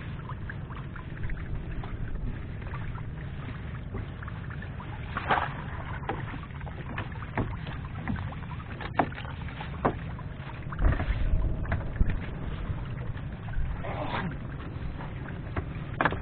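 Water sloshing and splashing around a small fishing boat, with knocks and clicks over a steady low rumble. Louder splashes come about five, eleven and fourteen seconds in.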